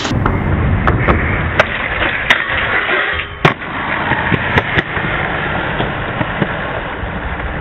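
Skateboard wheels rolling on concrete with a steady rumble, broken by several sharp clacks of the board, the loudest about three and a half seconds in.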